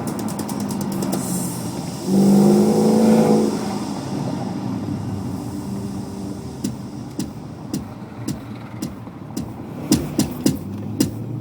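BMW 745i V8 with a custom exhaust idling and revved once, briefly, about two seconds in, then settling back to idle. In the second half, sharp irregular clicks come over the idle, more often near the end.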